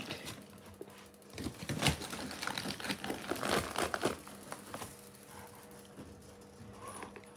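Clear plastic bag crinkling and rustling as it is handled, in irregular bursts that are busiest from about one and a half to four seconds in, then quieter.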